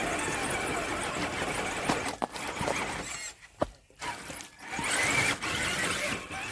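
Radio-controlled rock crawler's electric motor and gears whining as it crawls over stone. The sound cuts out and starts again a few times in the second half, with a sharp click about three and a half seconds in.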